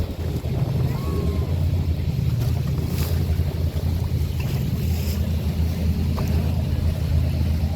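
Motorboat engines running as boats pass on the river, a steady low drone with a few faint clicks mixed in.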